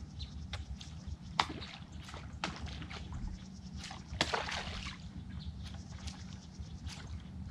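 Water sloshing and splashing, with scattered sharp clicks and ticks over a steady low rumble.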